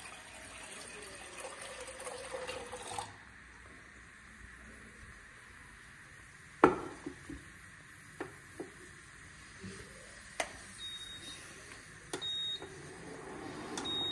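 Water from a reverse-osmosis purifier tap running into a steel kettle for about three seconds, then cut off. A sharp clunk as the kettle goes down on an induction cooktop, a few light clicks, then the cooktop's short high beeps, a few in the last seconds, one at each button press as it is switched on.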